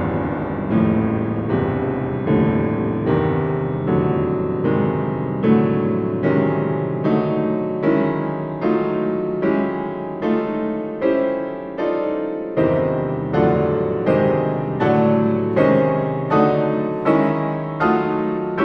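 Grand piano playing a solo passage of repeated chords in a steady pulse, about three chords every two seconds, each ringing and fading before the next. A deeper bass note enters about two-thirds of the way through.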